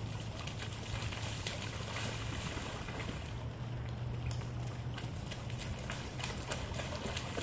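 Steady low wind rumble on the microphone over the hiss of light rain, with faint scattered splashes of small children's feet wading through a shallow street puddle.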